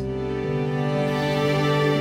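Soft background music of held, sustained chords that change about half a second in.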